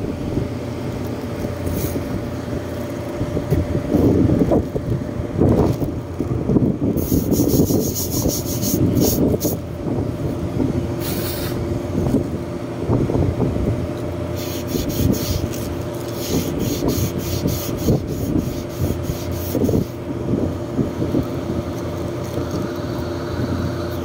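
Steady mechanical hum of rooftop air-conditioning equipment, with irregular rustling and scraping from handling around it.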